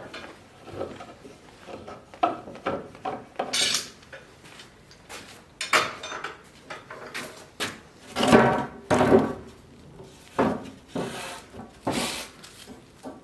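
Irregular clatter of hard objects being handled, a string of knocks and clinks, with two louder clanks that ring briefly about eight and nine seconds in.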